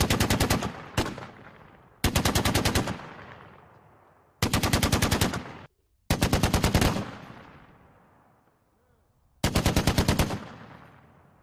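Browning M2 .50 caliber heavy machine gun firing five short bursts of about eight rounds each, with a lone shot just after the first burst. The echo rings out after each burst.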